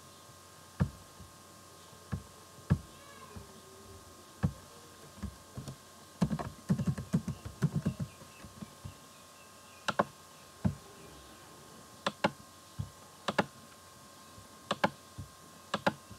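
Computer keyboard typing and mouse clicks: single sharp clicks spaced a second or two apart, with a quick run of keystrokes about six to eight seconds in, over a faint steady hum.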